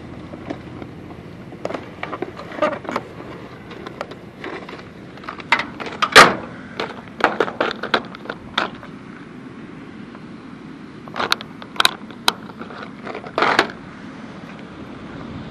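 Plastic tackle box and lures being handled: irregular clicks and rattles, the loudest about six seconds in, with another run of them near the end.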